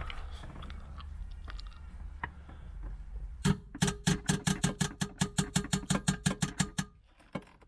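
Faint rustling and handling of parts, then about a third of the way in a fast, even run of sharp clicks, about seven or eight a second, for roughly three seconds before it stops. The clicks come from the work inside the car's dashboard.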